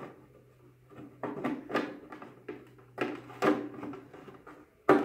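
White ABS plastic helmet parts clattering and scraping as the face piece of a Scout Trooper helmet is pressed and shifted against the dome in a test fit, an irregular string of knocks. It still catches in places and needs more trimming.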